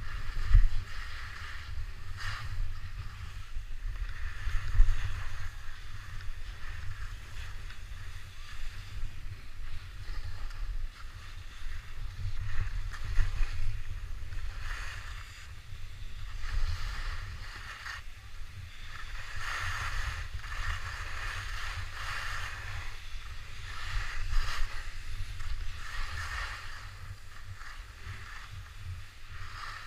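Skis sliding and scraping over packed snow on a downhill run, the hiss swelling and fading every few seconds with the turns, over a steady low rumble of wind buffeting the microphone.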